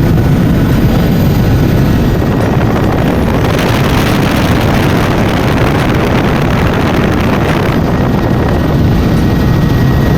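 Helicopter engine and rotor noise, loud and steady, with a brighter rush of hiss from about three and a half to eight seconds in.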